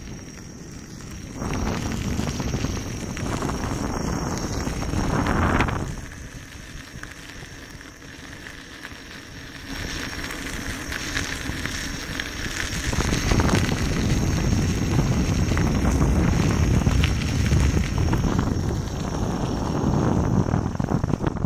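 Wind rushing over the microphone and the tyre of a Gotway MSuper3 electric unicycle crackling over a gravel path while riding, louder from about 2 to 6 seconds in and again from about 13 seconds on.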